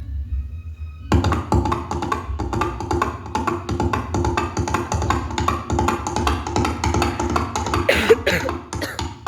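Halved coconut shells knocked in a fast clip-clop to imitate horse hoofbeats on a hard surface: a woody, rhythmic clatter that starts about a second in. Music plays along with it.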